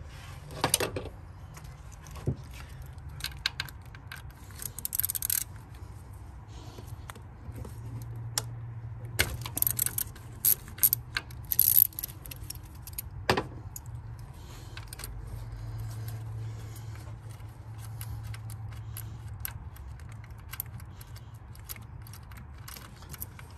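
Metal hand tools clinking and rattling in short irregular bursts, with scattered sharp clicks, over a low steady hum.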